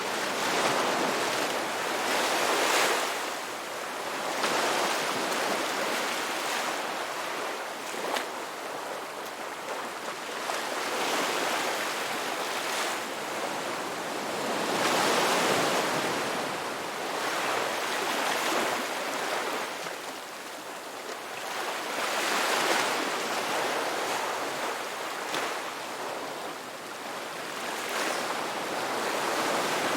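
Ocean waves breaking and washing on a shore in a continuous rushing surf that swells and ebbs every few seconds, with brief crackles of foam or shingle.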